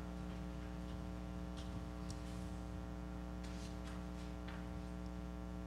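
Quiet room tone: a steady electrical hum made of several pitches held level throughout, with a few faint clicks scattered through it.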